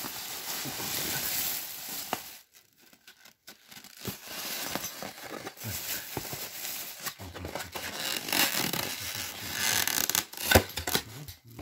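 Thin plastic carry bag rustling, then fingers working the tab clasp of a black plastic takeaway food container: scraping and clicking, with a sharp snap about ten and a half seconds in as the lid comes free.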